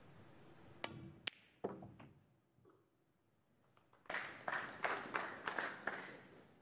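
Snooker balls clicking: a sharp cue-ball strike and ball contact about a second in, then a run of taps and knocks from about four seconds in as the balls come off the cushions and a red drops into a pocket.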